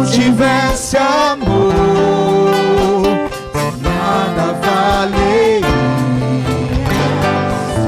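Christian worship band music between sung verses: an instrumental passage with guitars, bass, keyboard and drums carrying a melodic line.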